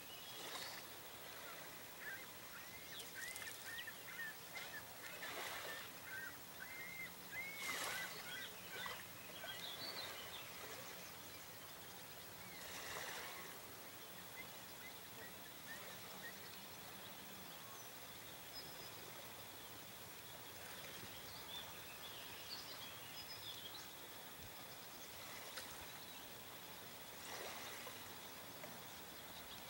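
Faint outdoor ambience: small birds chirp in quick series during the first third, with a few brief rushes of noise scattered through and a faint low hum that fades about halfway. A thin, steady high tone runs through the second half.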